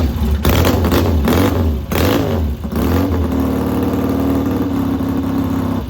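1966 Triumph Bonneville T120TT's 650cc twin engine, freshly kick-started from cold. It is blipped up and down several times in the first few seconds, then settles into a steady fast idle.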